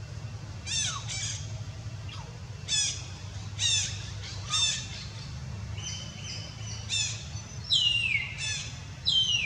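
A string of short, high-pitched animal calls, each falling in pitch, and near the end two longer cries that slide down. A steady low hum runs underneath.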